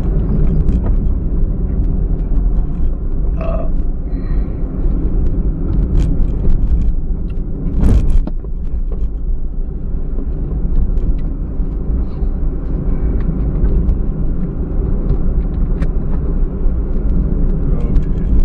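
Cabin rumble of a 2000 Honda Insight being driven along a winding road, tyre and engine noise picked up by a dashcam, with a sharp knock about eight seconds in and small scattered clicks.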